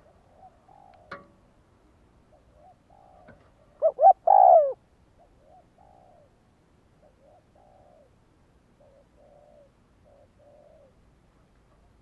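Spotted dove cooing: a loud burst of three coo notes about four seconds in, with fainter soft coos before and after. A single sharp click comes about a second in.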